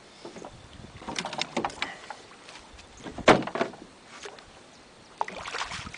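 A hooked boga splashing at the water's surface beside a boat as it is brought in and netted, with scattered knocks, the loudest about three seconds in.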